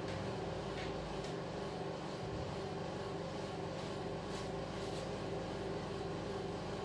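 A steady machine hum with a low, even drone that holds its pitch throughout, and a few faint ticks over it.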